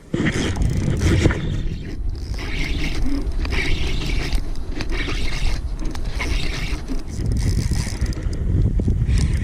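Strong wind buffeting the microphone in a steady low rumble, with bursts of higher scraping, hissing noise about once a second.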